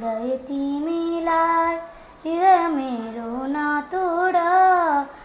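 Young schoolgirls singing a slow Nepali song, holding long notes with a wavering pitch that glides up and down. There is a short breath-break about two seconds in.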